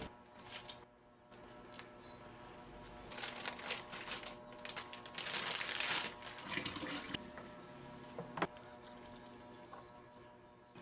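Calm piano background music over kitchen handling noises: clicks and rustles, with a few seconds of hissing noise in the middle.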